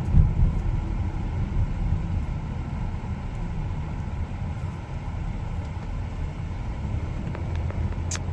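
Steady low rumble of a car's road and engine noise heard from inside the cabin while driving, with a brief click near the end.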